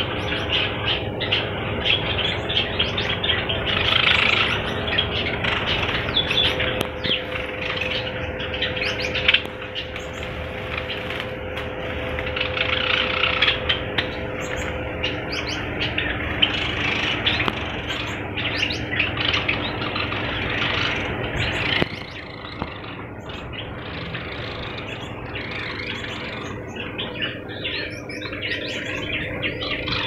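A cage full of small finches chirping at once, a dense overlapping twitter of short calls that thins out a little after about twenty seconds. A steady hum runs underneath.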